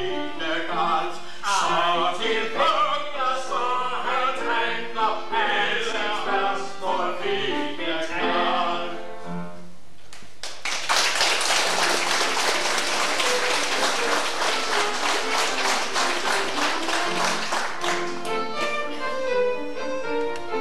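A vaudeville song, sung to a small instrumental accompaniment, ends about halfway through. The audience then applauds for several seconds. Instrumental music with violin and piano starts again near the end.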